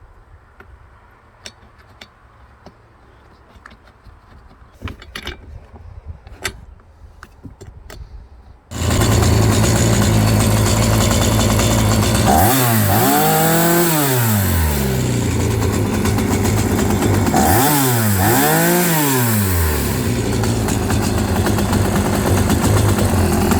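A few faint clicks and knocks, then about a third of the way in a Stihl two-stroke chainsaw engine starts abruptly and runs steadily. It is revved up and back down twice, briefly each time, and then settles back to a steady run.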